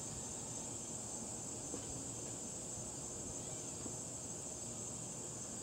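Insects trilling in a steady, unbroken high-pitched drone.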